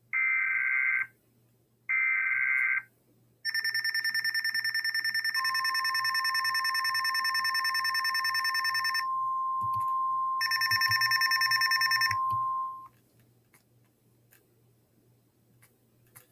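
Weather-radio emergency alert sequence: two short bursts of warbling two-tone digital data (NOAA SAME header), then an Eton Zoneguard Plus weather radio's own rapidly pulsing electronic alarm beeping. A steady 1050 Hz NOAA Weather Radio warning tone joins a couple of seconds later. The beeping breaks off briefly and resumes, then both stop about three-quarters of the way through.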